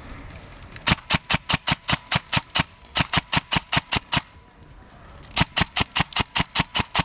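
Airsoft gun firing three long strings of rapid, evenly spaced shots, about six or seven a second, with short pauses between the strings.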